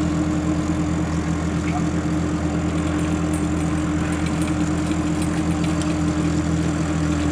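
Fishing boat's engine running steadily at an even speed: a constant hum with one clear higher tone over it, unchanging throughout.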